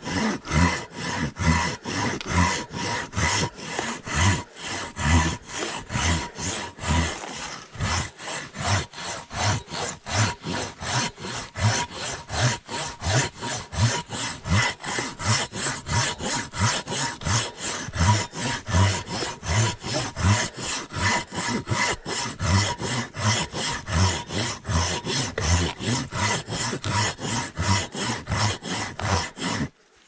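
Silky hand pruning saw cutting through a fallen tree, with steady, rhythmic back-and-forth strokes of about two to three a second that stop abruptly just before the end.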